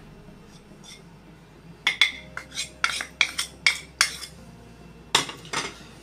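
Steel spoon clinking and scraping against a small steel bowl as ground spices are knocked off it: a quick run of sharp clinks starting about two seconds in, then a couple more near the end.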